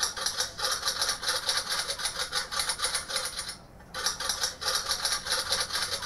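A rapid, even clatter of clicks in two runs, with a short break about three and a half seconds in.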